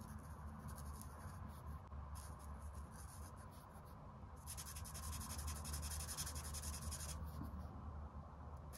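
Brush-nib art marker stroking across paper: a faint, soft scratching that thickens into a more continuous rub from about four and a half to seven seconds in.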